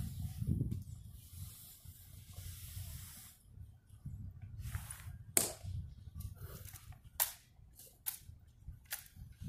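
Handling noise on a handheld phone's microphone: a low rumble throughout, a hiss that stops about three and a half seconds in, and several sharp clicks after that.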